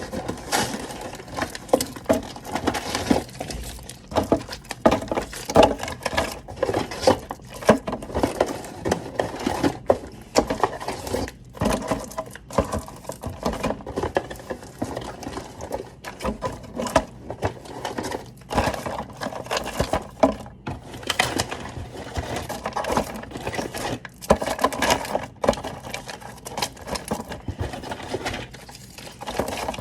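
Plastic bottles and organizer containers being handled and set down: a continual irregular clatter of knocks, clicks and rattles.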